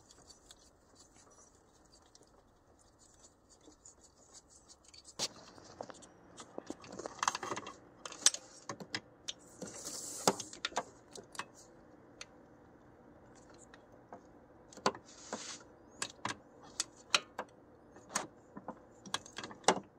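Metal socket and wrench clinking and tapping against engine bolts and parts while trying to fit a bolt: scattered sharp clicks and knocks with a few short rasping scrapes, starting about five seconds in after a faint steady hum.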